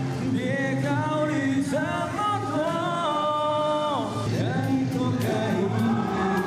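A man singing into a microphone over backing music through stadium loudspeakers, holding one long note in the middle of the phrase before his voice slides down.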